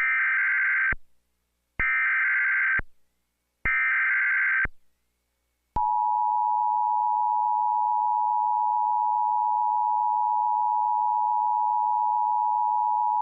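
Emergency Alert System signal: three one-second bursts of SAME header data, a buzzy warbling tone, followed about six seconds in by the steady two-tone EAS attention signal, which announces that an alert message is coming.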